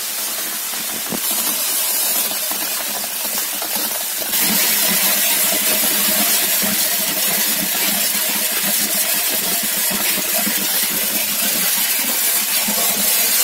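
Coffee bean colour sorting machine running with beans streaming through its chutes: a steady, dense hiss of machine noise that gets louder about four seconds in.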